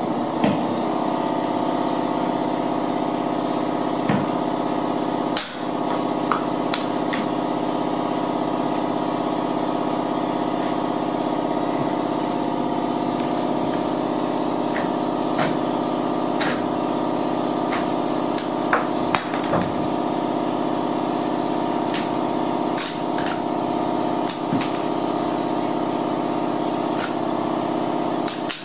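A power tool running steadily with a pitched buzz while the wooden door shims are cut off flush with the wall, with scattered sharp clicks and knocks throughout.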